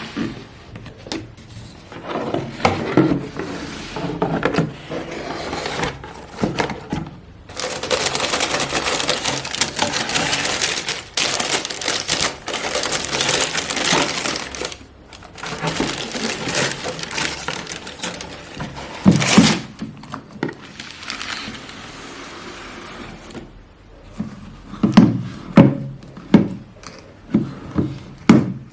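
A shoe box being unboxed by hand: its packaging rustling in long stretches, with scattered knocks and thumps as the box and its contents are handled, the loudest thumps about two-thirds of the way through and near the end.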